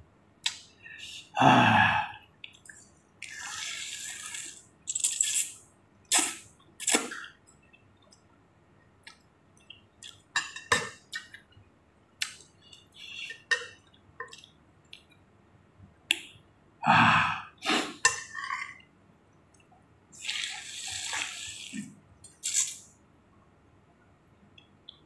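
Close-miked slurping of hot chicken thukpa noodle soup, in separate slurps of about a second each, with sharp clicks of a utensil against the bowl between them. Two louder, fuller sounds stand out, one about a second and a half in and one about 17 seconds in.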